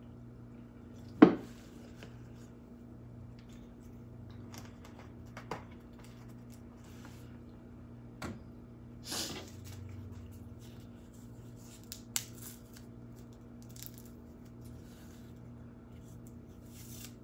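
Table-side handling of a lemonade bottle, a drinking glass and a straw: a sharp knock about a second in, then scattered light clicks and brief rustles as the straw is unwrapped, over a steady low hum.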